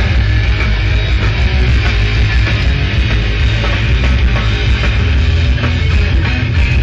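Rock band playing live and loud, with electric guitar over heavy bass and drums.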